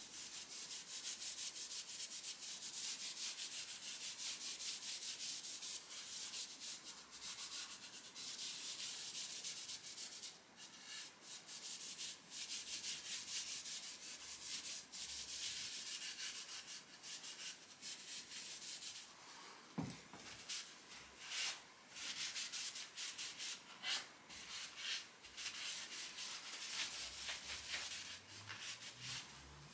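Steel wool scrubbing wood stain into the bare wood of a carved chair rail: a fast, scratchy rubbing in quick strokes that comes and goes, with a rag wiping the surface near the end. A single sharp knock comes about two-thirds of the way through.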